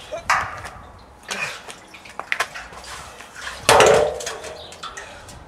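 Water-filled steel beer keg being hauled up and then set down hard on the ground with a ringing metallic clang about three and a half seconds in. Several smaller knocks and bumps of the keg come before it.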